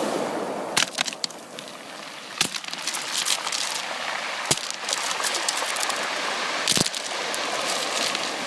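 Ocean surf washing in a steady rush of water noise, with many sharp crackles and clicks scattered through it.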